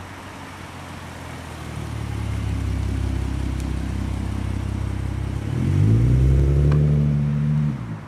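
2012 Ford Mustang engine running, then its revs climb about five and a half seconds in and hold higher and louder for a couple of seconds before falling away near the end.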